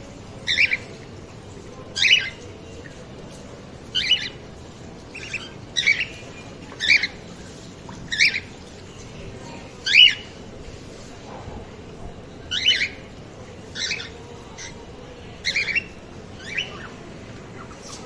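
Cockatiels in a breeding colony giving repeated short, shrill squawking calls, about a dozen of them spaced roughly a second or two apart.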